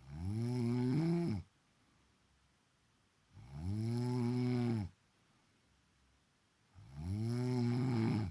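A woman snoring in her sleep: three long snores about three and a half seconds apart, each a steady, low-pitched buzz lasting about a second and a half.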